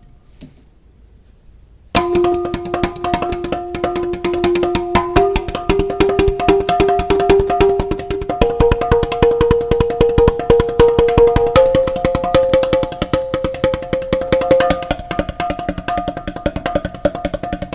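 Background music with rapid, dense drum-like percussion under long held notes that step upward in pitch every few seconds, starting abruptly about two seconds in after a quieter moment.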